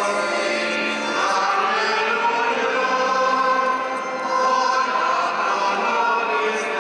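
A choir singing a slow liturgical chant in long held notes, part of the sung Mass liturgy.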